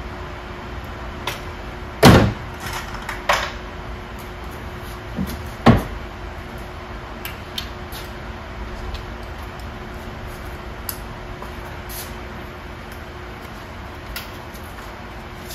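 A few sharp knocks over a steady hum: the loudest about two seconds in, another a second later and a third near the middle, with fainter ticks between.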